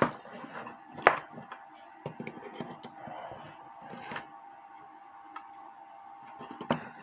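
Small metallic clicks and taps as needle-nose pliers grip and bend a brass lever on an 1880s Albert Flieg cuckoo clock movement. The sharpest click comes about a second in, with a few lighter ones after, over a faint steady hum.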